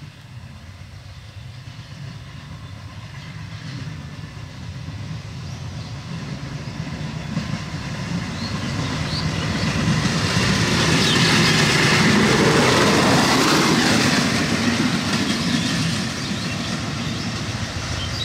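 Small motorised rail inspection trolley running along the track: its motor and its wheels on the rails grow louder as it approaches. It passes close about twelve seconds in with a falling pitch, then fades as it moves away.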